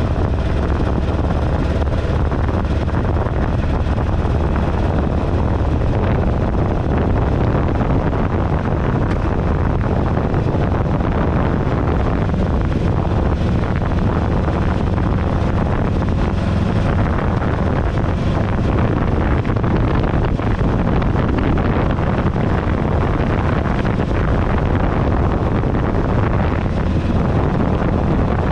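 2008 Buell Ulysses XB12XT's air-cooled V-twin running steadily under way, largely buried in wind buffeting on a handlebar-mounted microphone.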